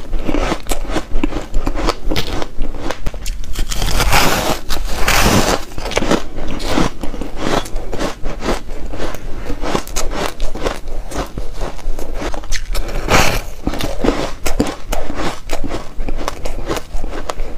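Frosty refrozen ice bar being bitten and chewed close to the microphone: a dense run of dry, crispy crunches and crackles, with several louder bites.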